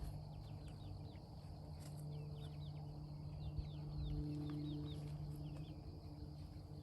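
Chickens making low, drawn-out murmuring calls, with many quick high chirps of small birds and a steady high insect buzz behind them.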